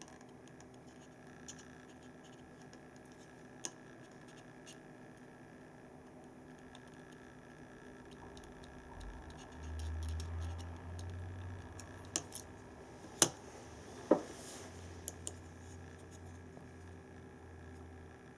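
Small clicks and taps of hands working on the left-button mechanism of an opened computer mouse, with a low rumble of handling in the middle. Two sharp clicks come about two-thirds of the way through, the second with a brief ring.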